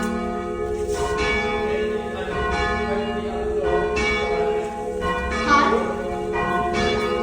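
Church bells ringing in a steady sequence, about two strikes a second, each bell ringing on under the next.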